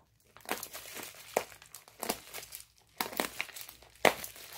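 Clear packing tape being cut on a cardboard box: a series of short, irregular scratchy strokes, the loudest one near the end.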